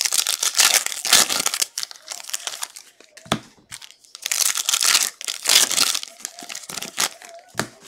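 Foil trading-card pack wrappers crinkling and tearing as packs are ripped open by hand, in two long stretches of crackle. Two short soft knocks come between them, about three seconds in and near the end.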